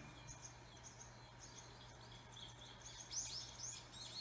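Faint birdsong: a string of short, high chirps that grow louder and more frequent about three seconds in, over a low steady hum.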